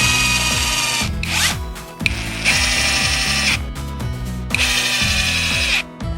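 Cordless power driver running in three short bursts of about a second each, as screws are driven. Background music plays underneath.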